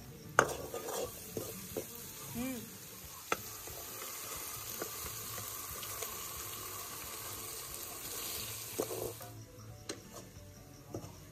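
Onion-and-spice masala sizzling as it fries in a steel pan over a wood fire, stirred with a steel ladle that now and then knocks against the pan. The sizzling stops about nine seconds in.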